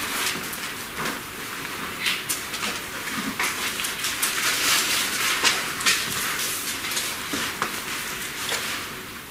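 Rustling of thin Bible pages being leafed through by hand: irregular short page-turn sounds over a steady hiss.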